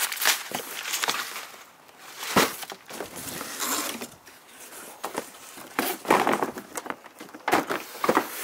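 A cardboard shipping box being opened and handled: irregular rustles, scrapes and knocks of cardboard as the boxed airsoft gun is pulled out, with one sharper knock about two and a half seconds in.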